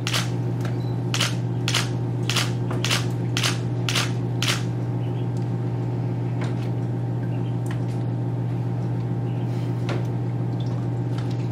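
Warm-air blower feeding a pelican recovery cage, running with a loud steady low hum. Over it, a run of sharp knocks about twice a second for the first few seconds, then a few scattered fainter ones, as the brown pelican works its bill in a plastic tub.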